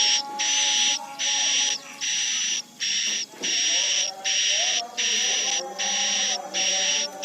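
Edible-nest swiftlet calls from a swiftlet-house lure-sound (SP) recording: a steady rhythm of buzzy chirps, each about half a second long, repeating about one and a half times a second. Fainter wavering lower tones run beneath them.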